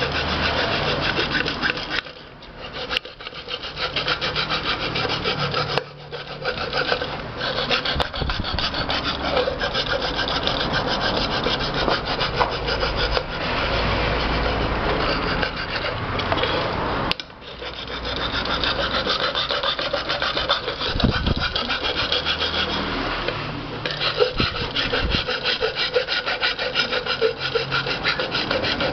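Flat hand file rasping back and forth across the metal rim of a pressure cooker lid, in steady strokes with a few brief pauses. The edge is being filed down so the rubber gasket does not catch on it.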